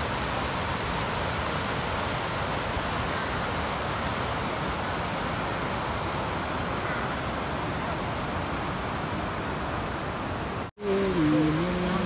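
Steady rush of a fast, stony mountain river, the Shaliganga. It cuts out abruptly near the end and returns with people's voices over the running water.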